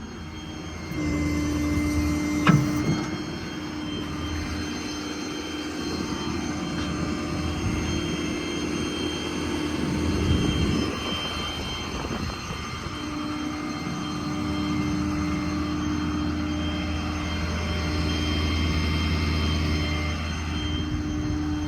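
A Ford 6.7 Power Stroke diesel engine runs steadily with its PTO-driven hydraulic pump engaged, giving a steady drone with a held tone that comes in about a second in. A single sharp knock sounds about two and a half seconds in.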